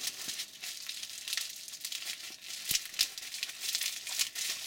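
Bubble wrap crinkling and crackling as it is handled and turned over. There is a steady crackle with a few sharper clicks, the loudest about three seconds in.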